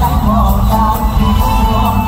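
Live band playing an upbeat Isan toei song with a heavy, steady bass, and a male singer singing the melody through a microphone over it.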